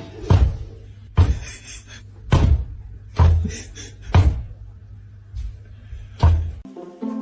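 A series of heavy knocks or thumps, roughly one a second, over a low hum; a few notes of music come in near the end.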